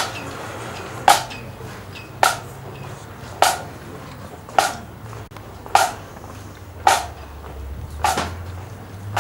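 Sharp knocks in slow, perfectly even time, about one every second, each with a short ring, over a steady low hum.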